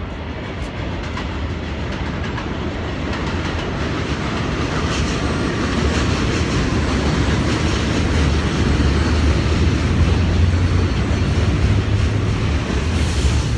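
Low, steady rumble of a heavy vehicle going by on the street, building in loudness over about ten seconds.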